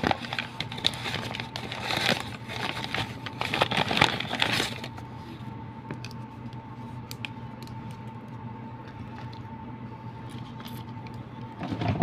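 Plastic food packaging crinkling and rustling as it is handled, for about the first five seconds, then a steady faint hum with a short rustle and knock near the end.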